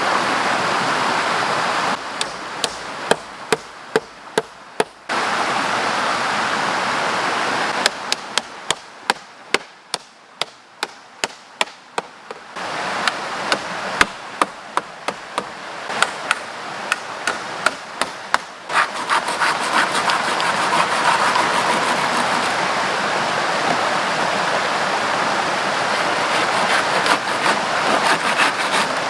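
Runs of sharp blows on wood, a few a second, like chopping or hammering, over a stream flowing steadily. The blows come in two runs early and in the middle, then the water alone, with faint quick ticks near the end.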